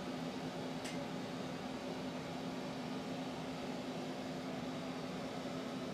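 Steady room tone: a constant low electrical hum with even hiss, with one faint click about a second in.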